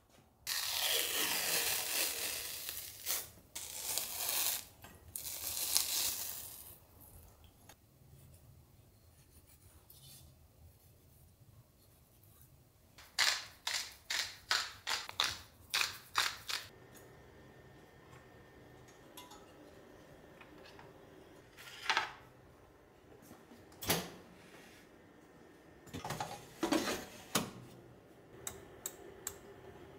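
Kitchen handling sounds: several seconds of loud rustling or scraping noise, then a quick run of about eight sharp clicks or knocks, followed by scattered single clinks of dishes and utensils.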